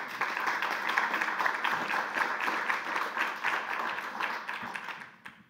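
Audience applauding: many hands clapping at once, dying away near the end.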